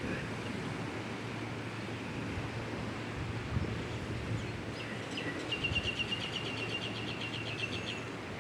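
Steady wind and surf noise, with a bird's rapid trill of evenly repeated high notes, about eight a second, starting a little past halfway and lasting about two and a half seconds.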